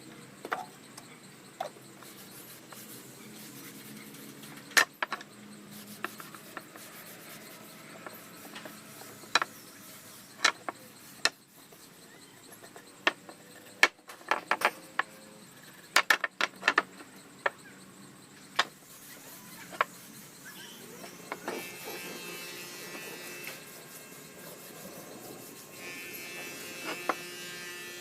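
Irregular knocks and clicks of wood and tools being handled in a woodworking shop, over a faint steady hum; a steadier higher tone comes and goes in the last few seconds.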